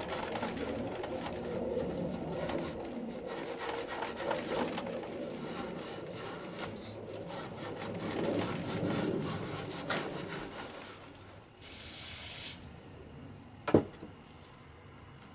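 Hand scraping and rubbing at the rust inside the top of a Suzuki GR650's fork leg, cleaning it out to reach the fork seal retaining clip. A short hiss comes about twelve seconds in, and a single sharp knock follows near the end.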